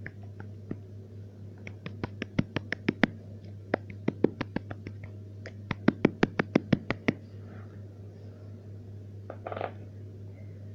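Three quick runs of sharp taps or clicks, about five a second, over a steady low hum.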